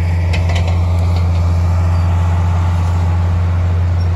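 Bulldozer's diesel engine running at a steady, loud drone.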